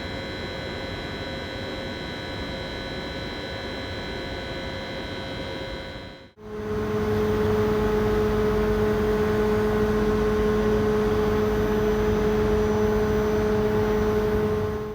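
Train equipment giving a steady hum, in two spliced recordings. About six seconds in it cuts to a louder, steady pitched whine over a low hum.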